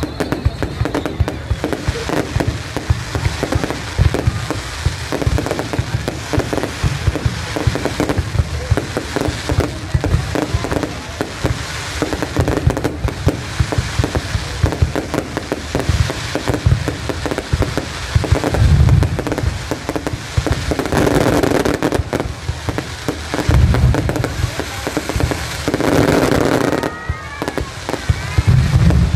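Fireworks display: aerial shells bursting in rapid, continuous crackling and popping, with deep booms a few times in the second half.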